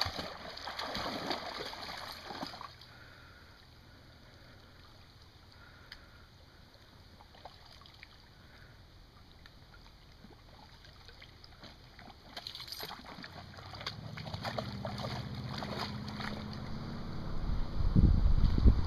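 Water splashing as a flat-coated retriever puppy wades through lake shallows, dying down after two or three seconds to faint lapping while she stands still. A low rumble builds over the last few seconds.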